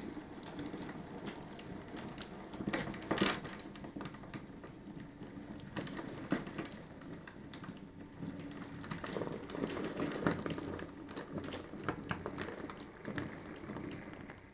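Model railway steam locomotive and goods wagons running on the layout track: a continuous clatter of small wheel clicks over rail joints over a low steady hum. It is loudest about three seconds in and again as the train passes close near the end.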